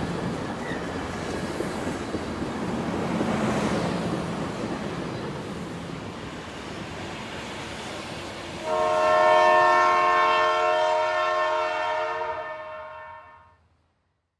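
A train rumbling along the rails, then a multi-tone train horn sounds one long held blast about nine seconds in, fading out near the end.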